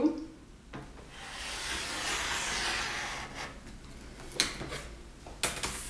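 A rotary cutter's blade rolling through cotton fabric along an acrylic ruler on a cutting mat, making one long bias cut. It sounds as a steady hiss lasting about two and a half seconds, followed by a few light clicks.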